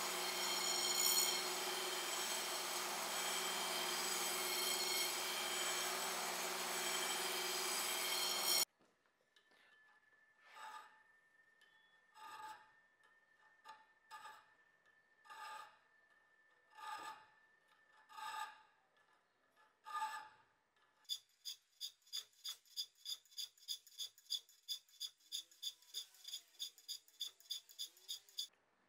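Belt grinder running steadily with a steel machete blade held to its abrasive belt, cut off suddenly about a third of the way in. Then a hand file rasping across the steel blade: slow single strokes about every one and a half seconds, then quick, even strokes about four a second.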